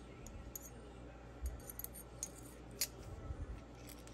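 Small steel rifle-bolt parts clicking and scraping together as a firing pin assembly with a bolt shim on it is worked by hand into the bolt body. There are a few light metallic clicks, the sharpest about three seconds in, amid soft handling bumps.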